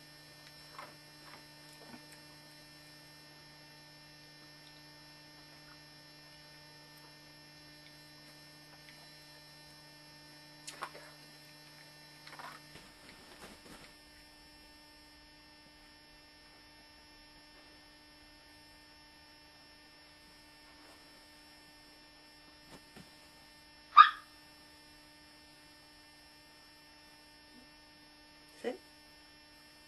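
Steady electrical mains hum made of several held tones, its lowest part dropping out about 13 seconds in. A few faint short sounds come through, and one short, sharp, much louder sound comes about 24 seconds in.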